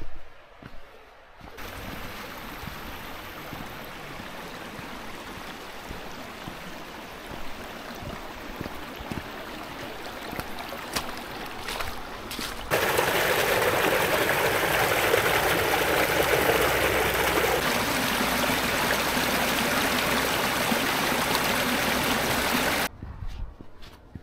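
A small stream running and trickling as a steady rush of water. It gets suddenly louder about halfway through and cuts off abruptly shortly before the end.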